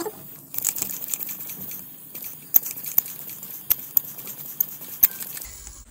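Brake fluid being drawn out through the rear brake's bleed nipple and tube during bleeding: a faint hiss with scattered small clicks and taps, a handful of them in the second half.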